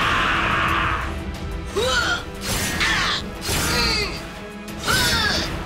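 A loud hissing whoosh effect dies away about a second in. Then comes a series of short screeching creature cries, each rising and falling in pitch, over background music.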